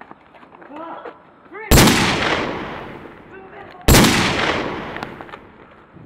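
Two dubbed-in gunshot sound effects about two seconds apart, each a sudden loud blast that fades away slowly. Faint voices come before the first.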